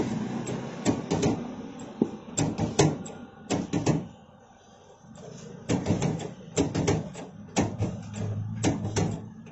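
Hand-lever French fry cutter being worked, its metal lever and plunger knocking sharply as it pushes potatoes through the blade grid. The knocks often come two close together, with a lull of about a second and a half in the middle.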